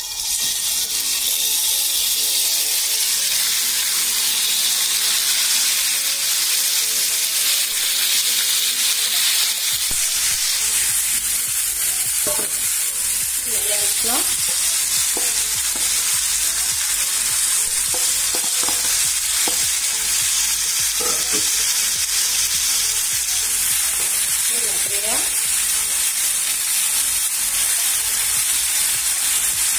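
Strips of raw chicken breast sizzling loudly in hot olive oil in a frying pan, starting suddenly as they hit the oil. From about halfway through, a wooden spoon stirring them adds short scraping strokes.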